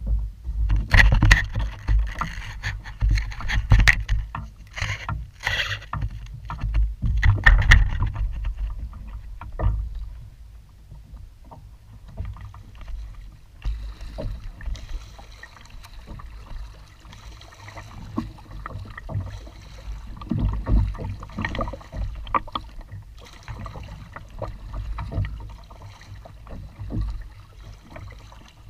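Double-bladed kayak paddle strokes dipping and splashing on alternate sides of a sit-on-top kayak, with sharp knocks and a low rumble. The strokes are louder and busier for about the first ten seconds, then softer.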